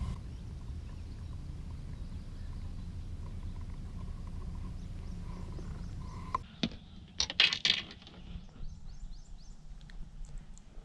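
A low steady rumble, then an abrupt change about six seconds in. A quick run of knocks and rattles follows, loudest about a second later, then lighter ticks, as a just-landed crappie is handled over the landing net.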